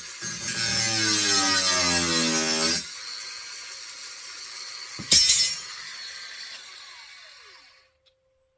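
Angle grinder cutting into a metal rod, its motor pitch dropping under load for the first few seconds, then running on more quietly. A sharp knock about five seconds in, then the grinder winds down to a stop.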